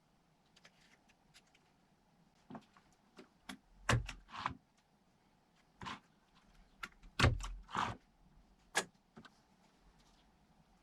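Irregular knocks and clicks of wooden frame parts being handled and fitted together, with two heavier thuds about four and seven seconds in and a few short scrapes.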